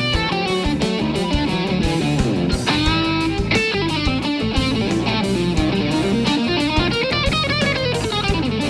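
Live electric guitar solo of fast note runs that climb and fall, over bass and drums.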